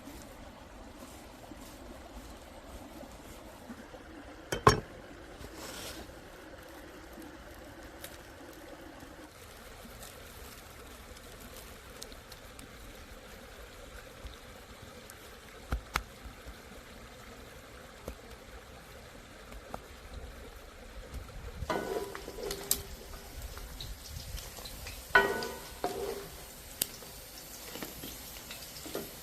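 Cooking sounds: a faint trickle and bubble of liquid, with a sharp knock or two and short runs of ringing clinks of cookware and utensils toward the end.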